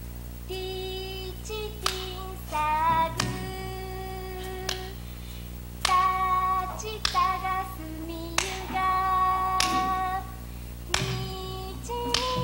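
A high female voice singing a slow song in long held notes that step between pitches. Sharp strokes mark the start of many phrases.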